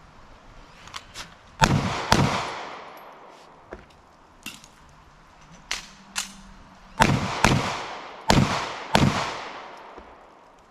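Six handgun shots fired outdoors in three quick pairs, each shot followed by a long trailing echo. Fainter sharp clacks fall between the pairs.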